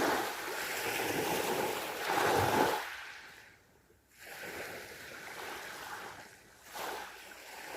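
Sea waves breaking and washing up the shore: a large wave surges and draws back over the first three seconds, then a smaller wash follows and a brief one comes near the end.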